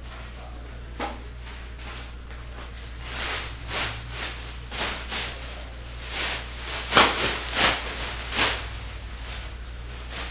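A plastic trash bag being handled and shaken open to line a bin: a run of short rustling swishes starting about three seconds in, loudest near the middle.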